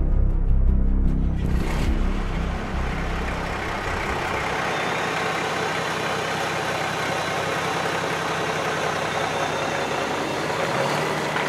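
Background music for the first couple of seconds, then a steady, even rush of vehicle noise with no distinct engine tone.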